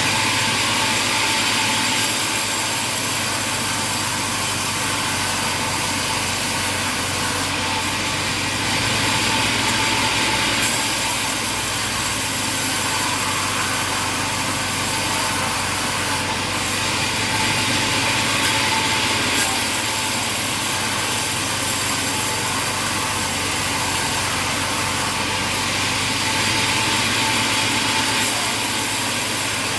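Sawmill saw running and cutting through wood, a steady machine noise with a few slight swells in loudness.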